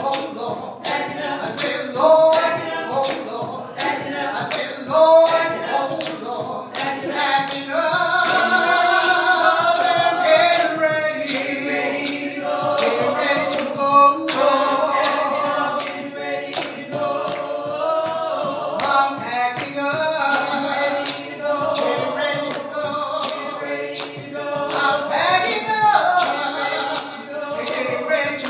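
A small mixed vocal group singing gospel in harmony into microphones, male and female voices together, with a sharp regular beat about twice a second keeping time.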